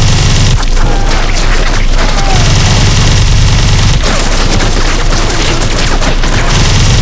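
Gatling-type rotary machine gun firing one long, continuous stream of rapid shots, very loud, with a heavy low rumble that swells and eases several times.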